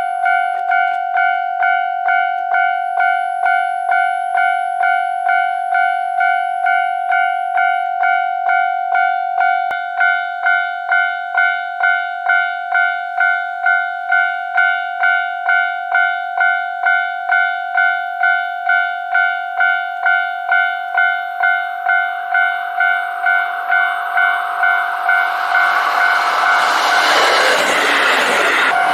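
Level crossing warning bell ringing in an even, steady ding-ding, a little under two strokes a second. Near the end a single-car KiHa 40 diesel railcar comes up and passes, its engine and wheel noise rising quickly until it covers the bell.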